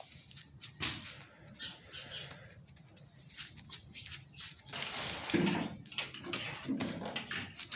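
Pigeons and a rooster moving about: scattered light clicks and rustles, with a few short low calls about five and seven seconds in.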